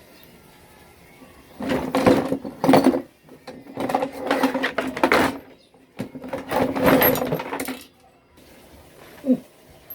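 A small motor-driven mechanism whirs in three bursts of about a second and a half each, with a steady hum under a rattle. A short falling squeak comes near the end.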